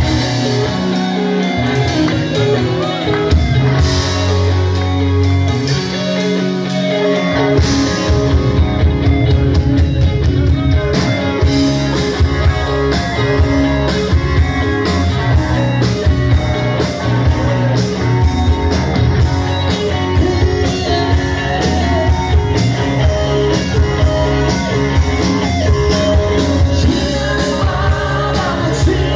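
Live hard-rock band playing loud through amplifiers: overdriven electric guitars, bass guitar and drum kit. Held bass and guitar notes open the passage, and about seven seconds in the full band kicks into a fast, driving groove.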